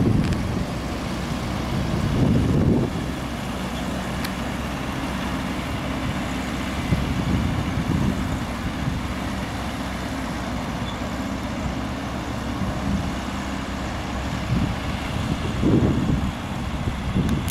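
Distant off-road vehicle engines running steadily as a Land Rover Lightweight tows a Hummer H2 and its loaded trailer, with gusts of wind rumbling on the microphone near the start and again near the end.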